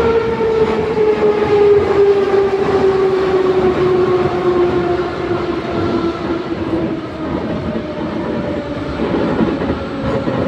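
Old metro train heard from inside the car, slowing down. Its traction motors whine in a steady falling pitch over the rumble of wheels on rails.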